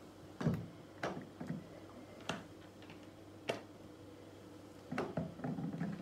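A bottle and cloth being handled on a granite countertop: scattered sharp taps and knocks a second or so apart, bunching into a quick cluster near the end, over a faint steady hum.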